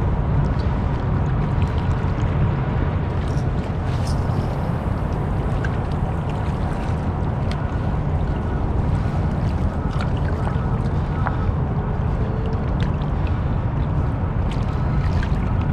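Steady low rumble of wind buffeting the microphone, with a few faint scattered ticks over it.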